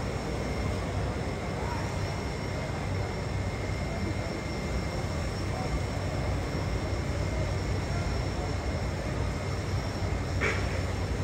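Steady low rumble of background noise with faint voices in it; a single sharp click about ten seconds in.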